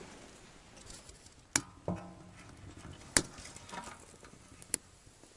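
Firewood burning in a small round metal stove with its door open: three sharp crackling pops spaced about a second and a half apart, and a brief metallic clank with a short ring just before two seconds in.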